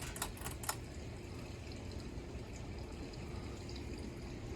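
Harbor Breeze Gaskin ceiling fan running on high: a steady rush of moving air with a faint low hum. A few light clicks in the first second.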